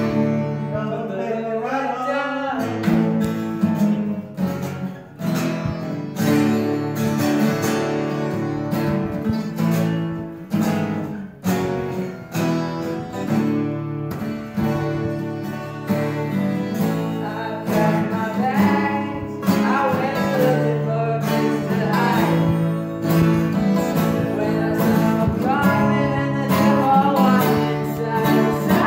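Three guitars strummed together in a folk or country style, among them a twelve-string acoustic and a six-string acoustic. A voice sings a melody over the chords in several stretches.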